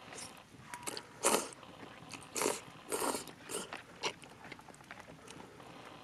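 Udon noodles being slurped and eaten from a bowl: a string of short slurps about half a second to a second apart. The loudest comes just after a second in.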